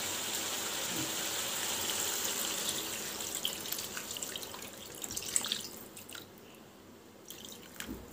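Water poured into a pan of chicken, a steady pouring rush that tapers off about five to six seconds in, ending in a few drips.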